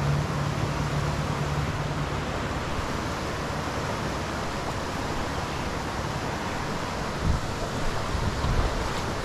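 Fast, rain-swollen creek water rushing in a steady hiss. There are a few short low bumps near the end.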